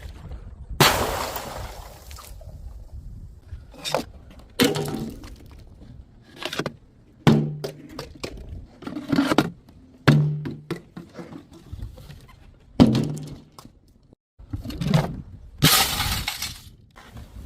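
Glass bottles shattering one after another: about ten separate crashes, each with a brief tinkle of falling shards, the longest about a second in.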